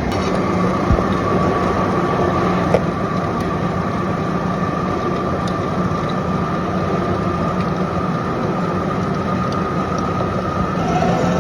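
Repaired paint mixer running at higher speed through its rebuilt gearbox: a steady hum with a high whine that comes in at the start, and a couple of faint clicks.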